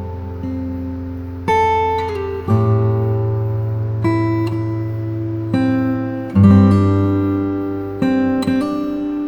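Background music on acoustic guitar: chords plucked and strummed, changing about every one to two seconds.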